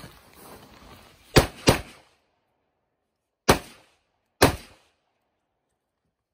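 Custom AR-style rifle on an Aero Precision base firing four shots: a quick pair about a second and a half in, then two single shots about a second apart.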